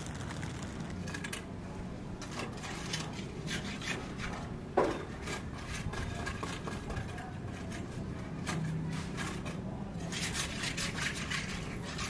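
Construction work on a building site: repeated scraping and rubbing of hand tools, busier near the end, with one sharp knock about five seconds in.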